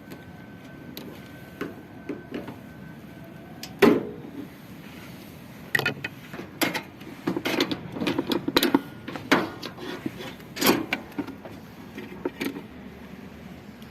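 Irregular knocks and metal clinks of tools and parts being handled while a washing machine is taken apart for a bearing change. There is one sharp knock about four seconds in, then a busy run of knocks and clinks.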